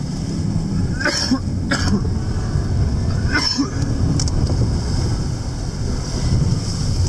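Van cabin noise while driving on a rough desert track in rain: a steady low rumble of the engine and road. A few short, sharp noises come about a second in, again just before two seconds and past three seconds.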